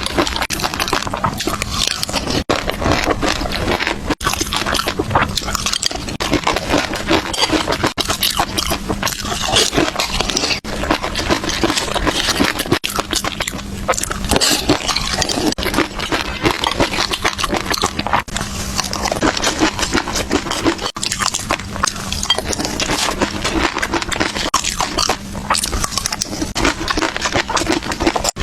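Close-miked ASMR eating of caviar: fish roe being chewed, giving a dense, continuous run of small clicks and crackles. A faint steady hum sits underneath.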